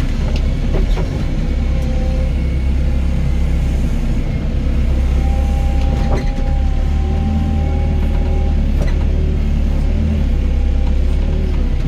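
Doosan DX55 mini excavator's diesel engine running steadily under working load, with a steady hydraulic whine held for a few seconds midway and a few short clanks from the digging.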